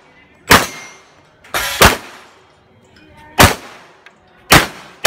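Pistol shots: about six sharp reports at uneven spacing, with a quick pair about a second and a half in, each trailing off in a short echo.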